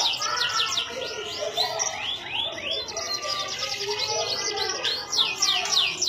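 Domestic canary singing: fast runs of repeated high sweeping notes and trills, thinning briefly midway and growing dense again near the end.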